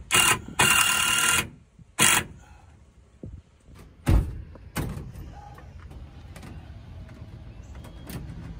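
Cordless drill driving screws into a pine 2x4 frame: a short burst, a longer run of about a second, and another short burst about two seconds in. A couple of wooden knocks follow around four and five seconds in as the frame is handled.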